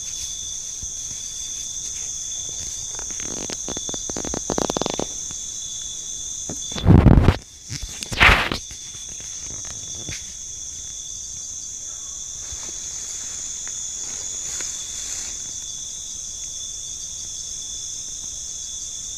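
Steady high trilling of crickets and other night insects in forest undergrowth. Rustling and footsteps through the plants, with two loud bursts of noise about seven and eight seconds in, the loudest sounds here.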